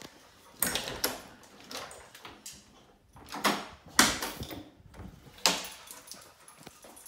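Interior panel doors being handled and pulled open: a series of sharp knocks and rattles, the loudest about four seconds in.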